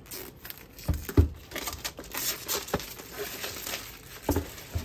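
A printed cardboard sleeve being slid off a small cardboard box: paper scraping and rustling, with a few dull knocks of the box being handled, the loudest about a second in.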